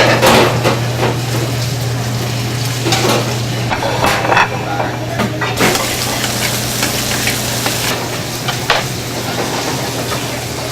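Food sizzling in a pan while a utensil stirs and scrapes, with scattered clicks over a steady low hum; the sizzle grows louder and hissier for a couple of seconds in the middle.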